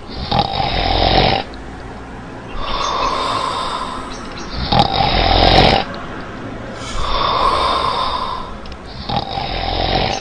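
A person's loud, rasping, snore-like breathing: five long breaths about two seconds apart, alternating in and out.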